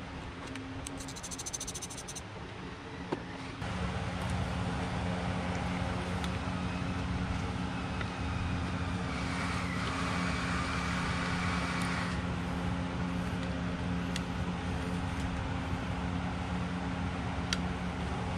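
Steady mechanical hum with a low droning tone, getting louder about three and a half seconds in, with a short hissing stretch in the middle and a few light clicks.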